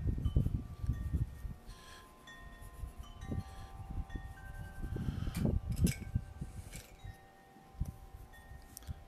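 Wind chimes ringing: several clear metal tones at different pitches start one after another and hang on. Under them are low rumbling bumps, loudest at the start and again about five seconds in.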